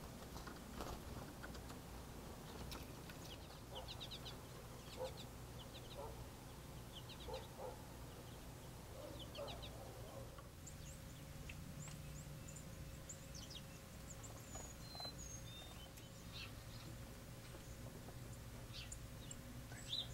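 Faint outdoor birdsong: small birds giving clusters of short, quick high chirps, over a low steady background hum.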